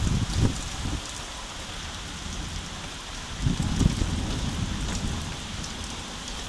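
Heavy thunderstorm downpour: a steady hiss of falling rain. Low rumbles come in the first second and again around three and a half to four seconds in.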